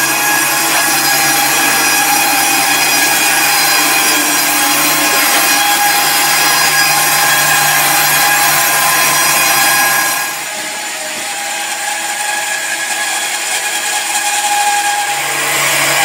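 Band sawmill blade cutting through a squared timber, a steady whine with several tones. About ten seconds in the sound drops and thins, then picks up again near the end.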